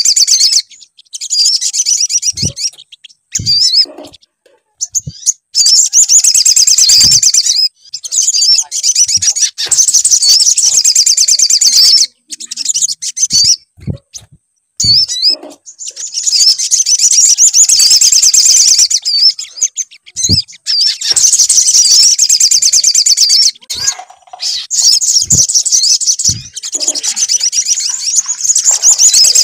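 Sogon (sogok ontong) bird song used as a 'pancingan' lure recording to trigger a captive sogon to sing. It comes as long, rapid, high-pitched trilling phrases of several seconds each, broken by short pauses, with a few brief low thumps in the gaps.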